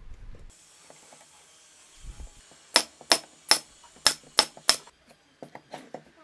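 Six sharp knocks in quick succession, about three a second, from workshop tool work, after two duller low thumps.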